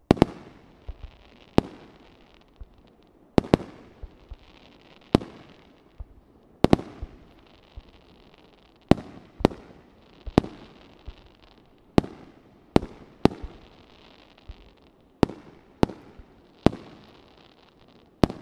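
Fireworks display: aerial shells bursting in a steady series of sharp bangs, about one a second and some in quick pairs, each with a short trailing echo and a faint hiss between them.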